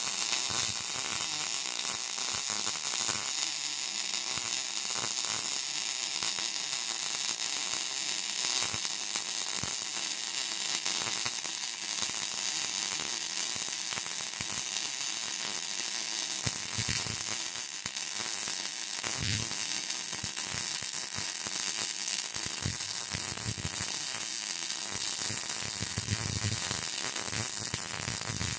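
MIG welding arc on steel plate, gas-shielded with solid wire, running steadily without a break while a weave bead is laid.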